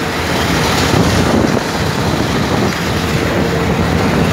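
Combine harvester's engine and machinery running steadily, heard from the operator's seat, a loud even din with a low hum under it.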